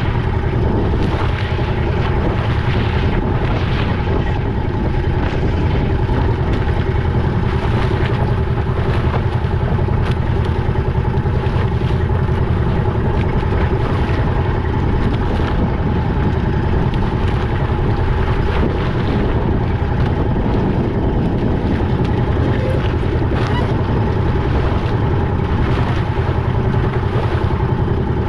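A fishing boat's engine running steadily at a constant speed, a continuous low drone with a few steady whining tones above it.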